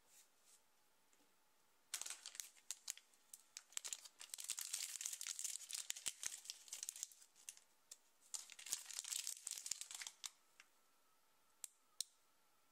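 A crinkly blind-bag wrapper being torn open and crumpled by hand, a run of crackling and sharp crinkles lasting about eight seconds with a short lull in the middle, followed by a few single clicks near the end.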